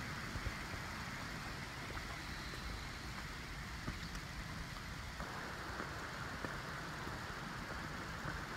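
Steady rumbling noise from walking on a rocky trail with a handheld camera: wind and handling on the microphone, with a few faint footstep clicks.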